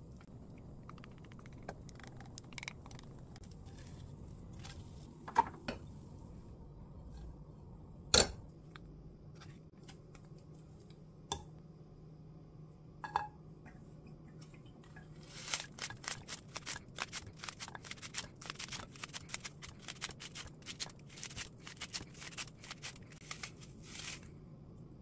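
Kitchen scissors snipping half an onion into slices: a long run of quick, crisp cuts through the second half. Before it there are a few separate knocks and clicks of things handled at the pan, the loudest about eight seconds in.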